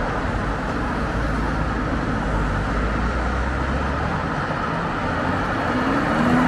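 Steady road traffic on a multi-lane city road: a wash of tyre and engine noise from passing cars. A deeper engine rumble runs from about a second and a half in to about four seconds, and a faint rising engine tone of an accelerating vehicle comes near the end.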